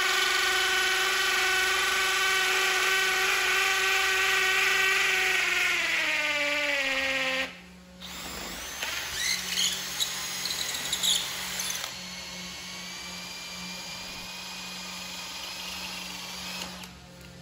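Cordless hammer drills boring into a concrete block. A steady motor whine falls in pitch about seven seconds in and stops, then drilling starts again with a more unsteady whine that evens out from about twelve seconds.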